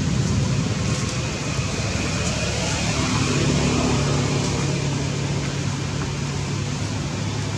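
A steady low hum, like a motor running, over an even rushing noise; the hum grows more distinct about three seconds in.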